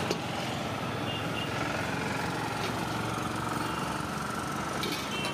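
A motor vehicle engine running steadily, with a faint whine that rises and falls in pitch through the middle, and a few light clicks about a second in, near the middle and near the end.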